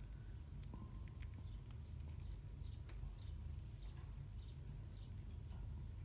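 Budgerigars pecking and cracking seed from a palm: faint, quick little clicks, bunched in the first couple of seconds, with soft high chirps now and then.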